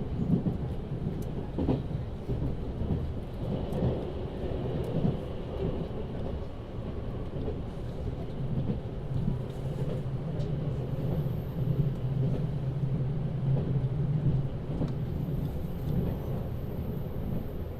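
Running noise inside the cabin of a JR Central 383-series Wide View Shinano limited express: a steady low rumble of wheels on rail, with faint clicks. A low steady hum comes in for several seconds around the middle.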